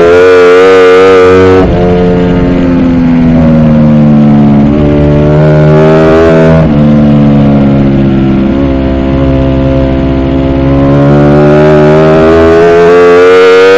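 Ducati Panigale V4 R's V4 engine heard onboard at race pace. The engine note drops sharply about a second and a half in and again past six seconds, sinks and rises through the corners, and climbs steadily under acceleration near the end.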